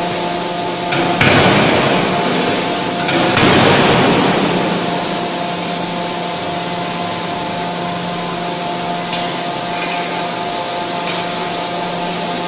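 Fully hydraulic forging hammer, 8-ton class, striking a hot steel workpiece twice about two seconds apart, each blow ringing on afterwards. Then a steady hum of the forge machinery carries on.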